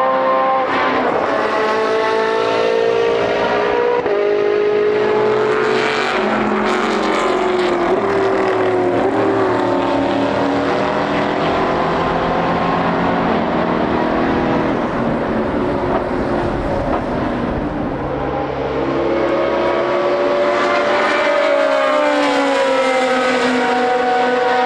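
Several historic racing cars passing one after another at high revs, their engine notes overlapping. The pitch of the engines drops as cars go by, around one second in and again about eight seconds in, then another car's note rises and falls near the end.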